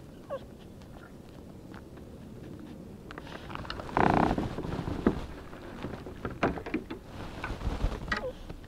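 A Yorkshire terrier gives short whines that fall in pitch, once near the start and once near the end. About four seconds in there is a short, loud burst of noise, and light clicks and knocks are scattered through the second half.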